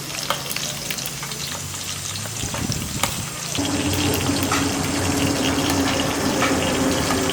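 Dried fish frying in hot oil, a steady crackling sizzle with sharp pops. About three and a half seconds in, a steady low hum joins it.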